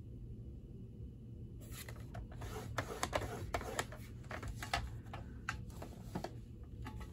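Cardstock being scored by hand: a run of light, irregular clicks and scrapes from the scoring tool and paper, starting about one and a half seconds in.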